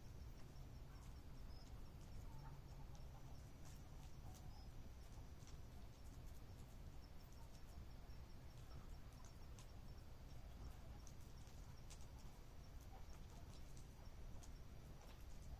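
Campfire crackling faintly: scattered sharp pops and clicks at irregular intervals over a low steady rumble.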